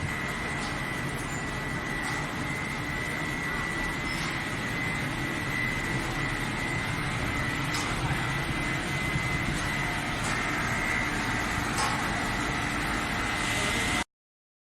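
Coal-fired steam boiler plant machinery running: a steady drone with a constant high whine and a few faint clicks, cutting off abruptly near the end.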